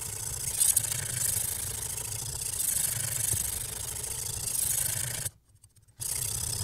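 Diamond whetstone on a guided-rod knife sharpener stroked along the steel edge of a chef's knife, a continuous rasping scrape that swells with each stroke. It stops briefly about five seconds in, then resumes.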